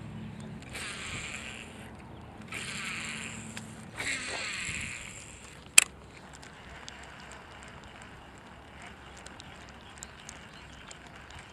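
Baitcasting reel cranked in four short bursts about a second apart as line is wound in, then a single sharp click a little before halfway, followed by faint outdoor background with small ticks.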